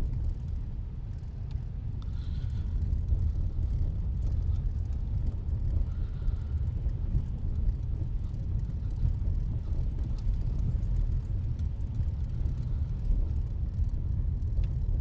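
Steady low rumble of a car driving slowly over snow- and ice-packed streets, heard inside the cabin, with faint scattered ticks.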